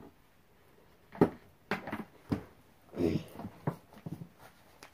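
Plastic Barbie dolls and doll clothes being handled: a series of short knocks and clatters, the loudest about a second in, with soft rustling between them.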